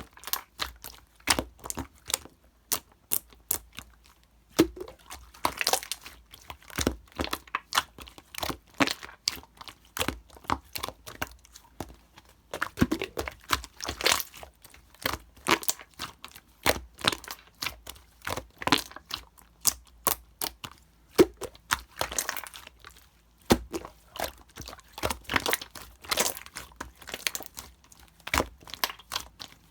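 Slime being squished and worked by hand, making dense, irregular crackling clicks, several a second, some much louder than others.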